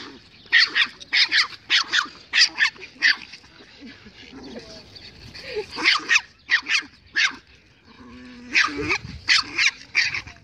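A small dog yapping in quick runs of short, high-pitched barks, about three a second, in three bursts with brief pauses between, as the dogs face off in play.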